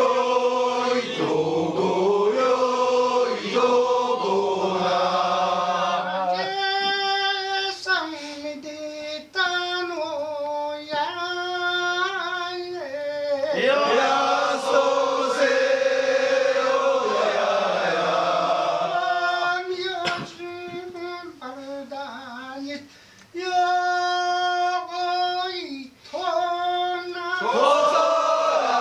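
Kiyari, the traditional Japanese work-song chant, sung in long drawn-out phrases whose held notes bend and waver in pitch, with short breaks between phrases.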